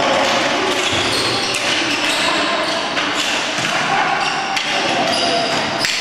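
Box lacrosse play echoing in an arena: repeated sharp clacks and knocks of sticks and ball against the concrete floor and boards, over a continuous din of shouting players and spectators.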